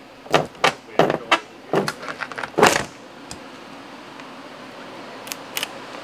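A quick run of about eight knocks and rattles as a motorhome's sliding window frame is worked loose and pushed out of its wall opening, followed by two light clicks near the end.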